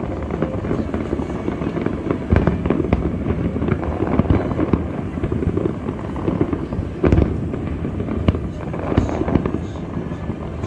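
Fireworks display: a dense, continuous run of bangs and crackling, with a heavier burst of booms about seven seconds in.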